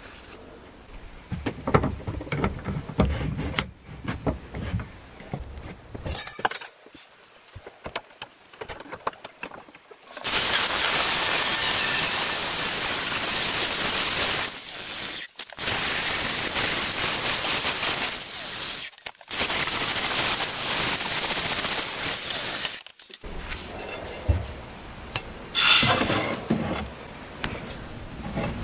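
Angle grinder grinding the steel of a billhook blade clamped in a vise, running loud and steady for about twelve seconds with two brief breaks. Before it come light scrapes and clinks of metal being handled, and after it a few knocks and clatters.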